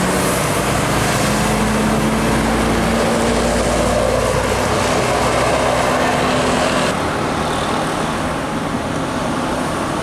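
Tour coach's diesel engine running with tyre and road noise as it passes, a steady low drone through the middle; the sound changes abruptly about seven seconds in.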